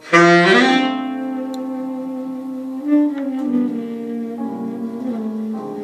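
Saxophone playing a slow melody of long held notes, changing pitch every second or so, opening with a loud bright attack.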